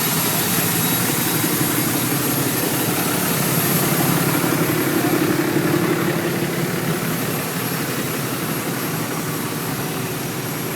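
Turbocharged 5th-gen Dodge pickup engine running with a thin, high turbo whistle over it; the engine swells a little about four to six seconds in, then eases off.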